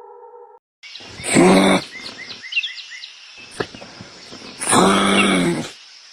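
A large wild animal roaring twice, each roar long and loud, over a background of birds chirping. A synthesizer-like tone cuts off just before.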